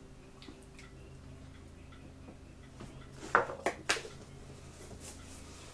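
Small hard objects handled in a cardboard box, with three quick clicks or clinks close together about three and a half seconds in, over a faint steady room hum.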